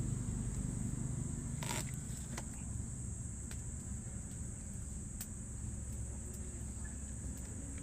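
Insects droning steadily in a constant high-pitched band over a low rumble, with a few sharp clicks, the loudest about two seconds in.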